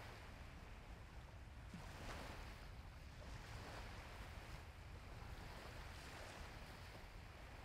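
Faint wind and surf on a beach: a steady wash of waves with low wind rumble, swelling softly now and then.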